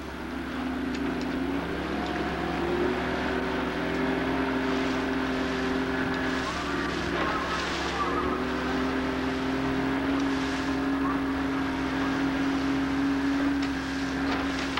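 Motorboat engine running at speed, a steady drone that drops out briefly midway, over the hiss of spray and water rushing past the hull.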